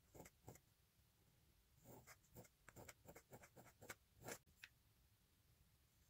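Faint scratching of a pointed steel dip-pen nib on paper as letters are written. There are two short strokes right at the start, then a quick run of strokes from about two seconds in to nearly five seconds.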